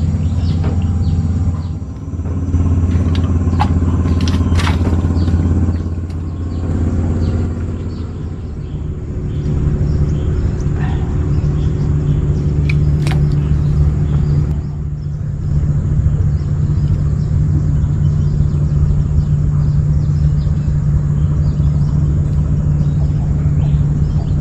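An engine running steadily with a low hum, its pitch stepping up about nine seconds in and then holding. A few sharp clicks are heard over it, around five and thirteen seconds in.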